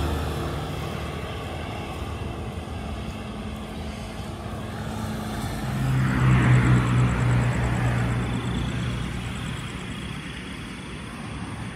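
Motor vehicles passing on a road. One engine fades out at the start. A second passes louder about six seconds in with a steady engine hum, then fades.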